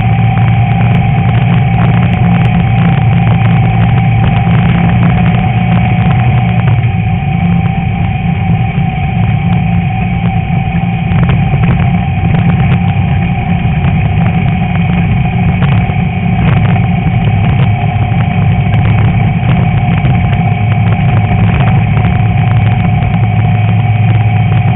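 Class 11 VW Beetle's air-cooled flat-four engine running at a steady pitch, with frequent rattles and knocks over it.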